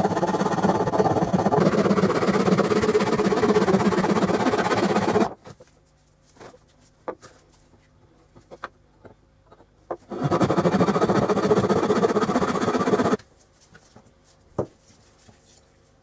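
Fine-toothed hand saw cutting through a wooden dowel with fast back-and-forth strokes, in two spells: one for about the first five seconds and another of about three seconds after a pause. The pause holds only light taps and clicks of the wood and saw being handled.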